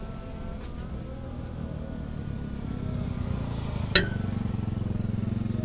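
Motorcycle engine growing louder as it approaches and passes close by. A single sharp metallic clink with a short ring comes about four seconds in.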